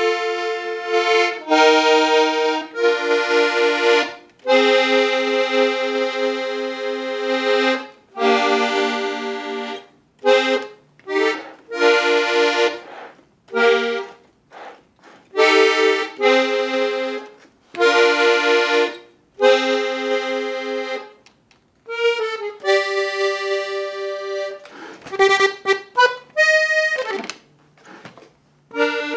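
Parrot button accordion tuned in F played solo: held chords and quicker runs of notes, broken by several short silences. The seller says the reeds are undamaged and the bellows has no air leaks.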